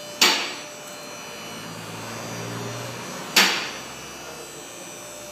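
Two loud, sharp bangs about three seconds apart, each ringing off briefly, over a steady background hum.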